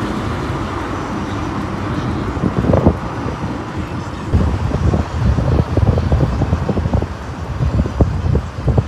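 Car being driven, heard from inside: a steady low road and engine rumble, with irregular knocks and bumps from about four seconds in.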